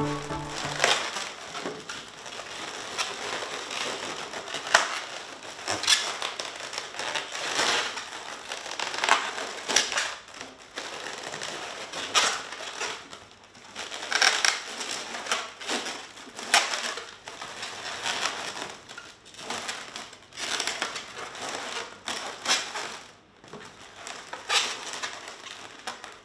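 Inflated latex twisting balloons squeaking and rubbing against each other in irregular bursts as they are pressed and tucked into place.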